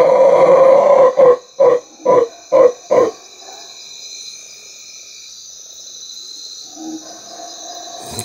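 A man imitating a howler monkey's roar. A long guttural roar breaks about a second in into five short grunts, which end about three seconds in.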